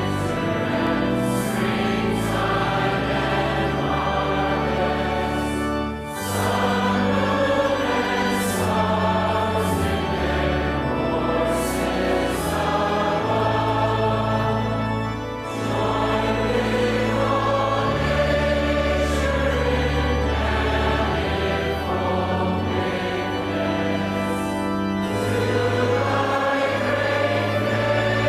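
Choir singing a hymn over a sustained accompaniment, in long phrases with short breaths between them about six seconds in and again around a quarter of a minute in.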